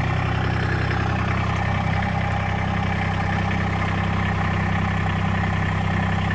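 Massey Ferguson GC1710 sub-compact tractor's diesel engine running steadily.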